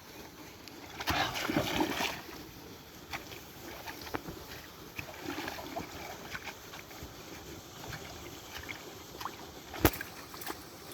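Water splashing and sloshing, busiest about one to two seconds in, with scattered small clicks and one sharp knock near the end.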